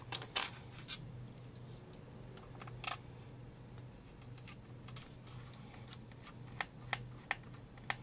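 Scattered light clicks and taps of fingers and a small tool on the bottom cover of an Asus ROG Zephyrus Duo 16 laptop, with several sharper clicks near the end. A steady low hum runs underneath.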